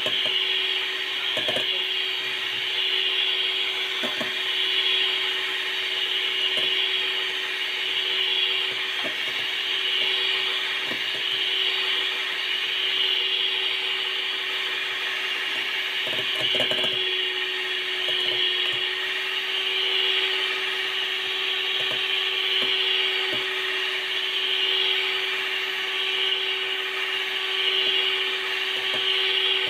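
Electric hand mixer beating cake batter in a bowl: a steady motor hum under a swishing whir that swells and fades about every two seconds, with a few knocks.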